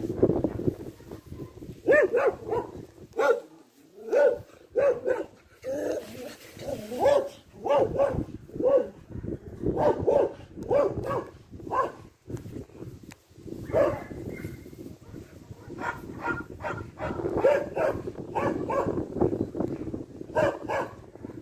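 A dog barking repeatedly in short runs of calls, with a brief lull about halfway through.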